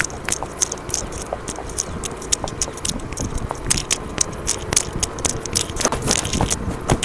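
Hooves of a cantering horse on a dirt track, heard as rapid, irregular clicks and knocks over a steady rushing noise.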